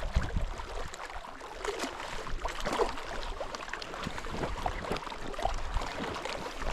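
Light, irregular splashing and lapping of water as a hooked brook trout is played in close to the angler.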